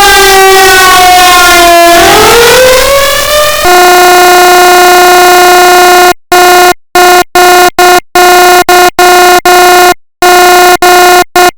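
Sterling Model 30 SirenLite siren sounding, loud. A wail slides down in pitch, then starts to rise again. About four seconds in it switches abruptly to a steady horn-like tone, which in the second half is sounded in short, irregular blasts with silent gaps between them.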